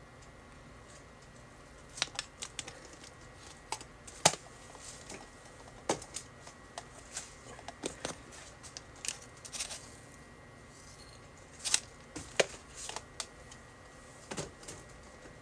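Irregular sharp clicks and taps of spice containers and a small spoon being handled, starting about two seconds in, with the loudest click about four seconds in.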